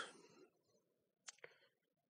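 Near silence, with two faint, short clicks close together about a second and a half in.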